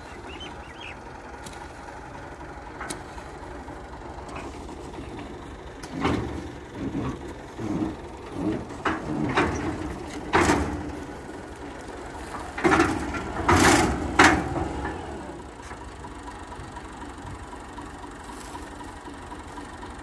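A spade chopping and scraping into dry, hard-packed field soil: about ten sudden strikes in the middle stretch, over a steady low background hum.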